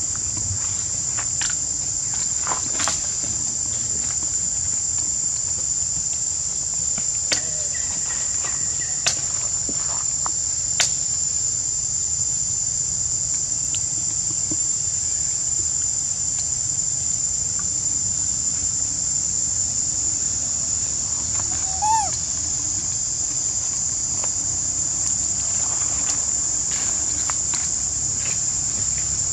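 Steady, high-pitched insect chorus, one continuous shrill drone, with a few faint clicks and one brief squeak about three-quarters of the way through.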